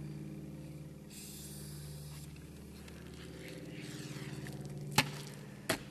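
Diet Coke bottle rocket fizzing out in a brief high hiss about a second in, over a steady low hum that slowly fades: a failed launch. Two sharp knocks near the end.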